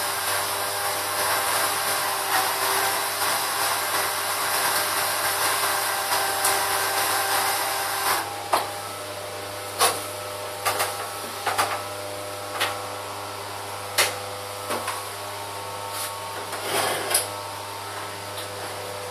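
Cordless drill running steadily against the plastic back of a car headlamp housing, stopping about eight seconds in. After that, a string of sharp plastic knocks and clicks as the lamp and tool are handled, over a steady low hum.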